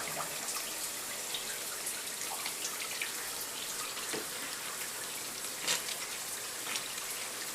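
Shower water running steadily, with a few short splashes and drips, the loudest about two-thirds of the way through.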